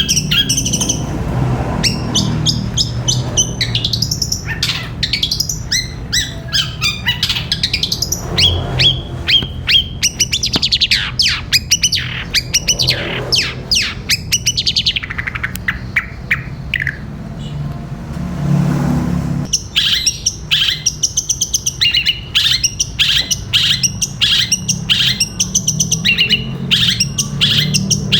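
Long-tailed shrike (cendet) singing a long, varied song of rapid chirps and gliding whistled notes, in the 'gereja petir' style that mimics house sparrow chatter. From about 20 seconds in, it breaks into a fast, even run of repeated sharp chirps, several a second.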